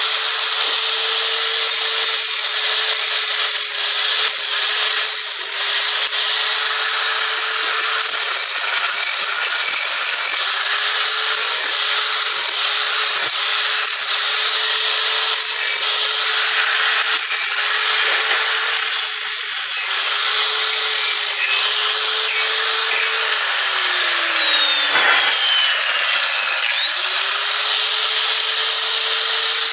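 Hand-held electric angle grinder running and grinding on a painted steel drawbar piece: a steady motor whine over a harsh grinding rasp. Near the end the pitch drops sharply as the disc slows under the work, then climbs back up to speed.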